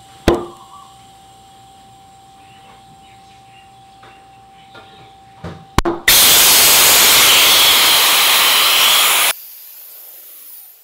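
Air compressor blow gun blasting compressed air through the valve stem into a scooter tyre to seat the bead on the rim. A sharp click comes just after the start and a few small clicks come about halfway, then a loud, steady hiss of air lasts about three seconds and stops abruptly.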